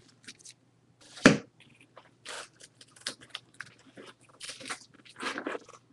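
Plastic-sleeved trading cards rustling and crinkling as a handful is pulled out of a cardboard box, in short irregular bursts, with one sharper knock about a second in.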